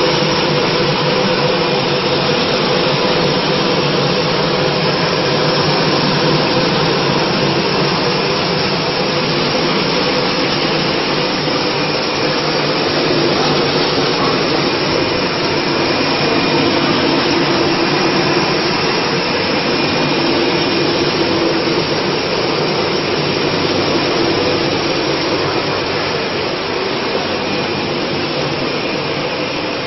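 Caramel popcorn production line machinery running: a loud, steady rushing noise with a faint low hum in it.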